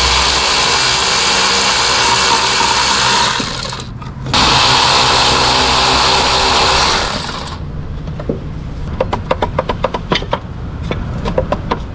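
A power tool runs in two bursts of about three seconds each with a short break between, taking out the bolts of an engine bracket, followed by a run of rapid clicks.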